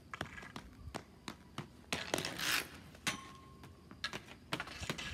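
A hockey stick, ball and inline skates clatter on a concrete driveway: a string of sharp taps and clacks, with a short scraping hiss about two and a half seconds in. One clack just after three seconds rings briefly.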